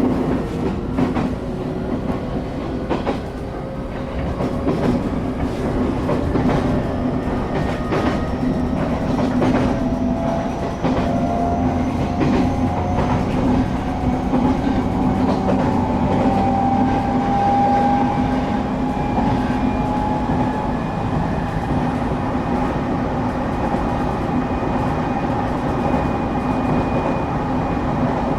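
Cabin sound of a moving Shinetsu Line local train: a steady rumble of the running gear with wheels clacking over rail joints, and a thin whine that slowly rises in pitch over most of the first twenty seconds.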